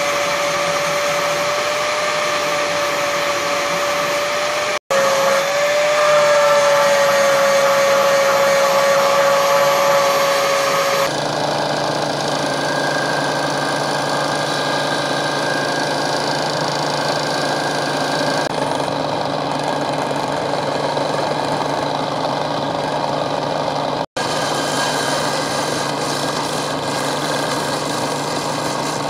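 An angle grinder whining at a steady pitch as it cuts through a steel spanner. About eleven seconds in the sound changes to a belt grinder running steadily, grinding the steel piece against the belt.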